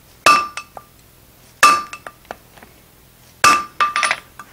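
Hand hammer striking a red-hot steel bar on an anvil, forging the square shank of a hardy. Three heavy blows about a second and a half apart, each with a short metallic ring and a few lighter rebound taps after it.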